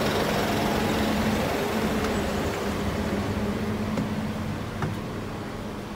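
Bus engine idling with a steady low hum, growing gradually quieter.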